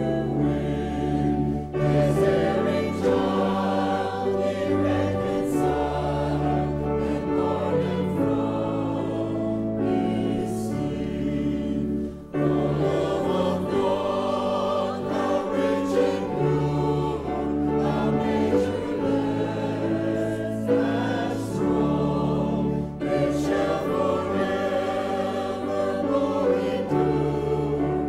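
Mixed church choir of men's and women's voices singing a hymn in parts, over deep held bass notes that change every couple of seconds. The sound drops briefly about twelve seconds in.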